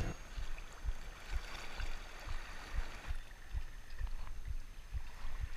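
Quiet seashore ambience of water moving against rocks, with soft low thumps recurring about two or three times a second.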